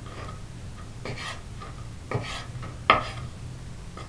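Kitchen knife cutting salted milk-cap mushrooms into cubes on a bamboo cutting board: three separate strokes of the blade against the board, the last the sharpest.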